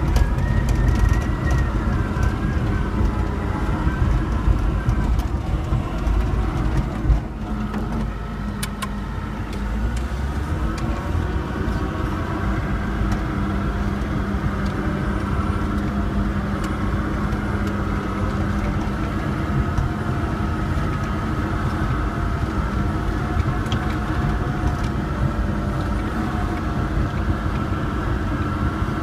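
Caterpillar D6N LGP crawler dozer's diesel engine running steadily under load, heard from inside the cab, its pitch dipping and rising a little in the first ten seconds as the blade pushes soil and rock. A few sharp knocks about seven to nine seconds in.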